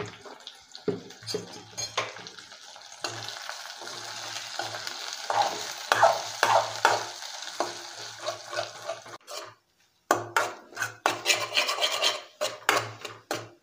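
Eggs frying in oil in an aluminium kadai, sizzling, while a metal spoon stirs and scrapes them around the pan with repeated clicks and scrapes against the metal. The sound cuts out for a moment about two-thirds of the way through.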